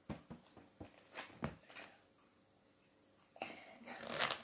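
Paper pages of a picture book being flipped: a run of quick flaps and taps, then a longer, louder rustle near the end as a page is turned over and smoothed by hand.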